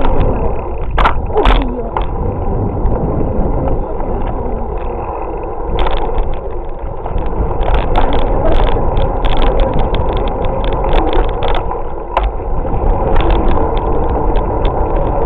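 Wind rumbling on the microphone of a camera carried on a moving bicycle, with the bike rattling and knocking over bumps. A run of sharp clicks and knocks starts about six seconds in.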